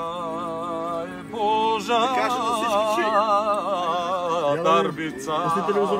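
A man singing in a mock-operatic style: long held notes with a wide, wavering vibrato, broken by a short break about a second in and another just before the end.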